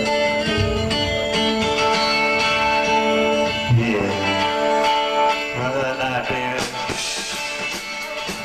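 Live rock band playing: held electric guitar chords that change every second or two, with regular drum hits coming in about seven seconds in.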